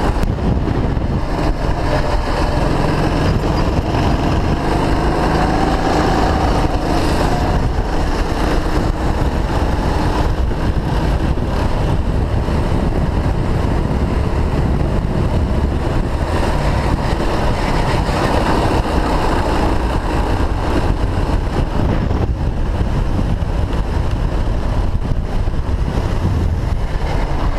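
Go-kart engine running hard on track, heard from onboard the kart over a steady rush of wind and road noise; the engine note shifts up and down with the throttle through the corners.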